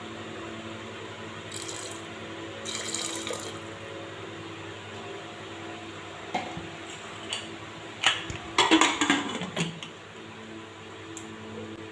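Water being poured or splashed in a kitchen pot, with clinks and clatter of steel utensils; the loudest splashing and clatter come in a cluster about two-thirds of the way through, over a steady hum.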